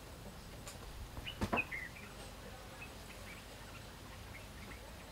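A few sharp knocks about one and a half seconds in as a baby vervet monkey moves across a wire cage top, with a short high chirp among them. Faint short chirps are scattered throughout.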